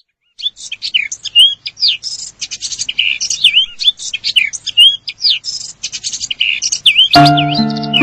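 Birds chirping and whistling, a quick run of high chirps and slurred whistled notes. About seven seconds in, keyboard music with a melody starts over the birdsong.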